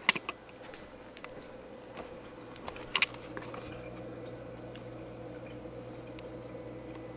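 Steady low hum of aquarium equipment running, with a few sharp clicks, the loudest about three seconds in.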